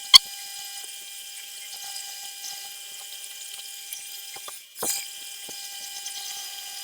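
Small metal lathe running with a twist drill boring into a spinning aluminium workpiece: a steady whine with a hiss of cutting. There is a sharp click just after the start, and a short louder burst about five seconds in.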